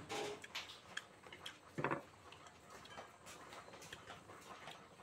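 Soft clicks and crackles of white fruit flesh being torn and peeled apart by hand, with one short louder sound a little under two seconds in.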